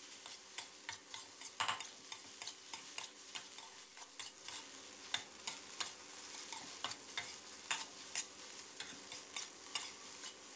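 Metal spatula scraping and clacking against a steel wok in quick, irregular strokes as fried rice is tossed and stir-fried until dry and loose, over a steady light sizzle.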